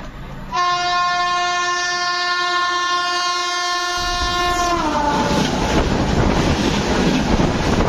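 A WAP-5 electric locomotive's horn sounds one long steady blast starting about half a second in, dropping in pitch after about four seconds as the locomotive passes close by at speed. Then comes the loud rushing noise of its coaches running past on the next track as it overtakes the stopped train.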